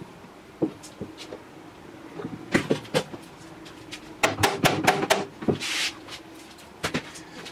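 Hammer tapping on a bar-clamped wooden side-table glue-up: two knocks, a quick run of about five, and a last one near the end. A brief rustle follows the run.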